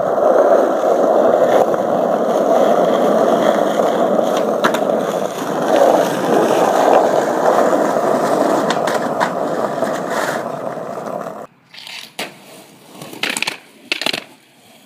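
Skateboard wheels rolling over rough asphalt: a steady, loud rumble with a few light clicks. It cuts off suddenly near the end, and a few sharp clacks of the board follow.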